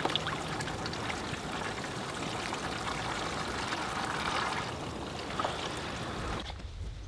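Water pouring steadily into a nearly full bathtub, cutting off about six seconds in.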